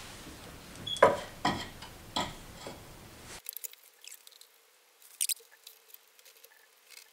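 Hands fitting a bracket and bolts to a power steering pump: a few sharp clicks and knocks of parts and tools in the first three seconds, then fainter scattered ticks.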